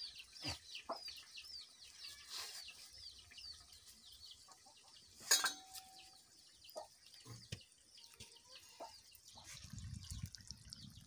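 Repeated high, short chirps of birds, several a second. About five seconds in, a single sharp metallic clink with a brief ring as the steel karahi is lifted off the clay stove.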